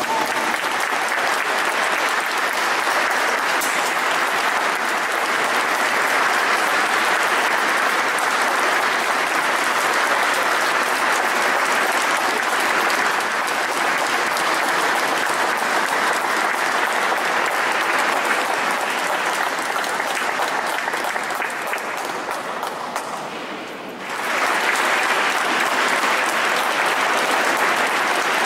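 Audience applauding steadily. The clapping thins a little near the end, then comes back abruptly at full strength.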